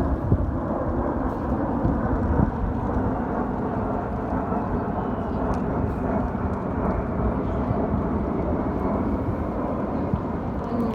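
Formation of four aircraft flying past: a steady, low engine rumble.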